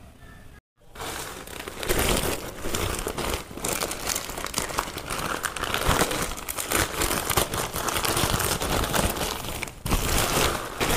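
A parcel's packaging being handled and opened by hand: continuous rustling and crinkling, after a brief silence about a second in.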